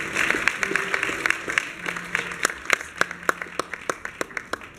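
Audience applauding, dense at first and thinning to scattered separate claps toward the end.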